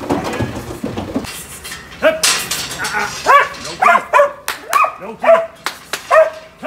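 A dog barking repeatedly, short sharp barks about two a second, starting about two seconds in. Underneath is the clatter of lambs' hooves on a metal livestock trailer ramp.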